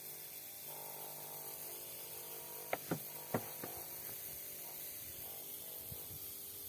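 Electrical transformer humming steadily, a low buzz made up of several even tones: the iron core vibrating with the alternating current (magnetostriction). A few faint clicks come about three seconds in.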